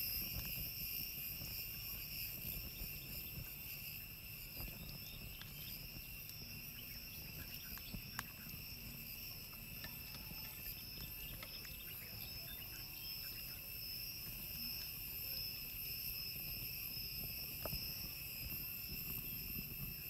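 Steady high-pitched chorus of insects, a continuous shrill buzz, with a low rumble beneath and a couple of faint clicks.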